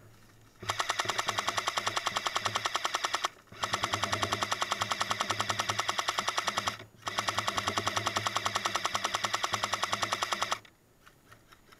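Airsoft M60 machine gun firing full-auto in three long bursts of rapid, evenly spaced shots, each about three seconds long, with brief pauses between.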